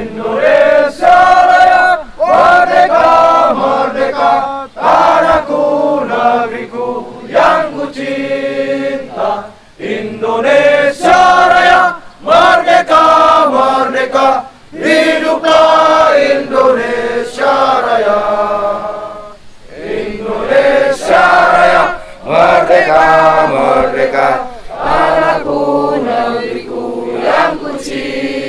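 A crowd of voices singing a song together in unison, phrase after phrase with short breaks for breath.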